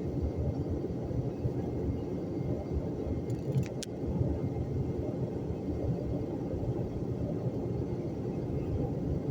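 Strong wind storm gusts buffeting the microphone: a steady low rumble that surges and dips, with two brief sharp clicks a little over three seconds in.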